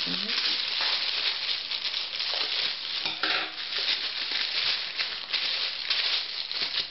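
Black plastic postal mailer bag crinkling and rustling continuously as it is cut open with scissors and the packed item is pulled out of it.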